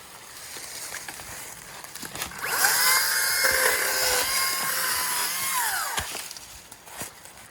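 Makita 18-inch brushless battery chainsaw spinning up with a rising whine about two and a half seconds in, running steadily for about three seconds, then winding down. A few light knocks come before it.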